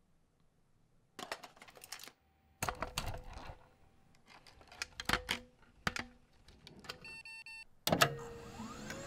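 Clusters of quick clicks and rattles from a hand tool working at a wall light-switch plate. Near the end comes a short run of electronic beeps, then a sharp hit followed by rising electronic tones.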